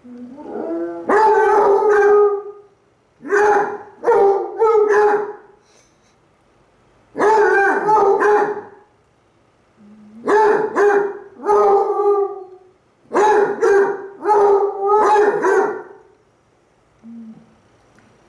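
Two basset hounds howling back and forth at each other in five loud bouts of baying, each a second or two long with short pauses between them, and a faint short yelp near the end.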